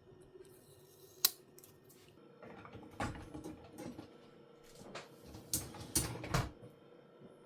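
Dishwasher parts being handled: a sharp click about a second in, then a few seconds of rattling clatter and knocks of the racks and fittings, loudest near the end.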